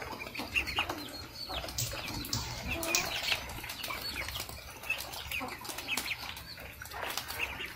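A flock of ducklings and a hen calling: scattered short, high peeps, with clicks and rustling as the birds move about and peck at the ground.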